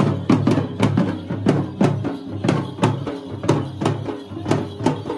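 Large barrel drums (dolu) beaten with sticks in a steady, driving festival rhythm of about two to three strokes a second.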